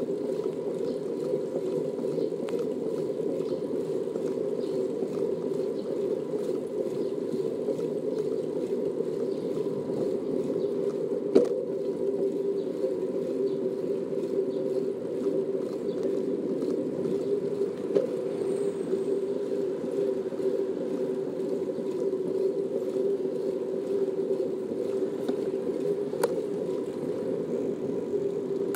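Steady rolling noise of a bicycle riding along a smooth asphalt bike lane: an even low hum with a steady tone in it, broken by three sharp clicks spread across the ride.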